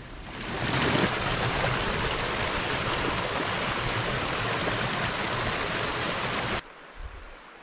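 Mountain creek water rushing steadily over granite boulders. It cuts off suddenly near the end, leaving a much quieter background.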